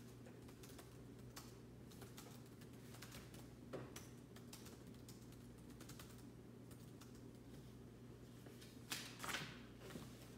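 Faint, scattered clicking of typing on a MacBook laptop keyboard over a low steady hum, with a brief louder rustle about nine seconds in.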